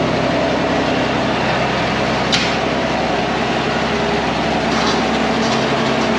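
Engine powering a New Holland Stackliner bale wagon, running steadily just after start-up, with a single sharp click a little over two seconds in.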